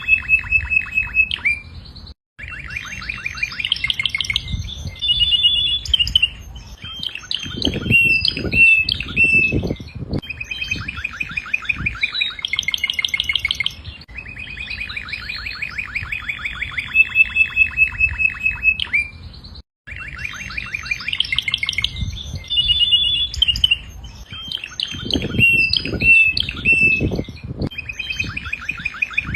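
Domestic canary singing a long, continuous song of rapid trills and repeated high notes, with brief pauses. The same stretch of song repeats about halfway through. Low thuds sound underneath twice.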